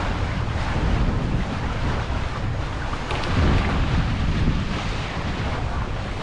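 Wind buffeting the microphone on a moving boat, over the rush of sea water.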